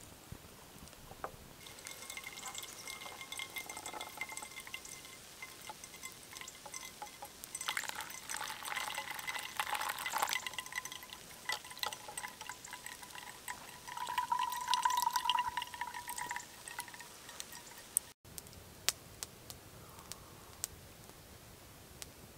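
Water poured into a paper coffee filter held over a mug, a trickling pour that comes in spells and is loudest a few seconds before it stops. After a sudden cut near the end, a few sharp crackles from a small campfire.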